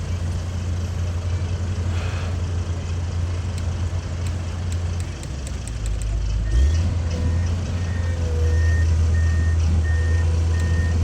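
Komatsu PC210 excavator's diesel engine running steadily, its note shifting about two thirds of the way through. After that change a travel alarm starts beeping at a regular pace, about one to two beeps a second.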